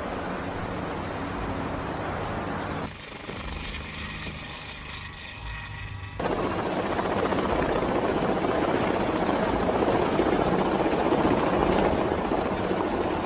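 Helicopter running as it hovers and lands, a steady rush of rotor and engine noise. The sound changes abruptly about three seconds in and again about six seconds in, where it grows louder and a high steady whine comes in.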